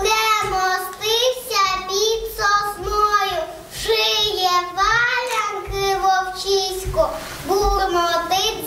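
A young girl singing solo without accompaniment, in a high, clear voice, phrase by phrase with short breaths between.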